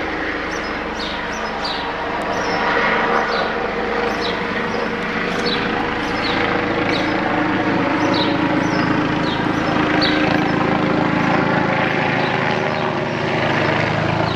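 Metropolitan Police Eurocopter EC145 helicopter flying low and passing nearly overhead: a steady drone of turbines and rotors that grows louder about two seconds in and stays loud.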